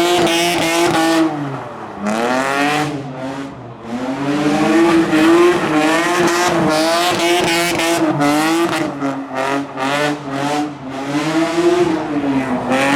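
A modified car's engine held at high revs while its tyres squeal in a skid. The pitch dips briefly twice, about two and four seconds in, then climbs back and holds.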